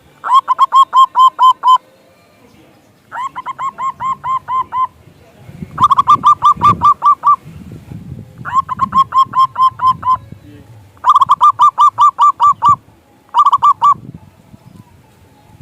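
Zebra dove (perkutut) singing: about six bursts of rapid staccato cooing notes, most about a second and a half long, with a second or so between them.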